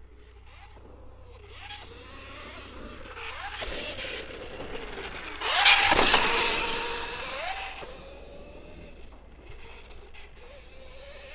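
KTM SX-E 5 electric kids' dirt bike, its motor whining with the pitch rising and falling as the throttle is worked. It passes close about halfway through, loudest there, then fades as it rides away.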